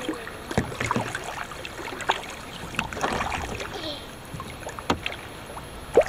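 Kayak paddle strokes: water splashing off the blades and the paddle knocking against the kayak, with one sharp knock near the end.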